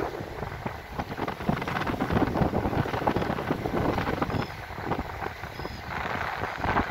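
Small waves lapping and washing onto a sandy seashore, with strong wind buffeting the microphone.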